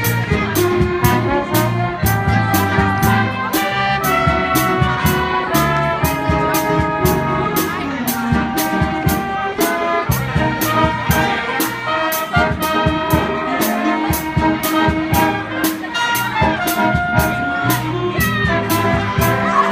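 Big-band jazz ensemble playing, the brass section holding chords and melody lines over a steady drum beat.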